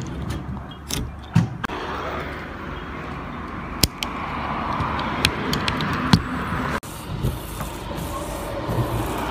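Car windshield wipers sweeping over the glass with a steady swishing, and a few sharp clicks near the start. The blades' rubber strips have just been cleaned and softened, so they run without squeaking or chattering.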